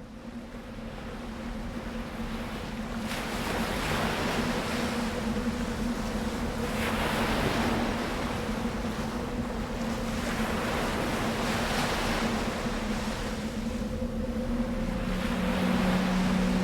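Sound of ocean surf fading in, with waves washing in about every four seconds over a steady low droning tone.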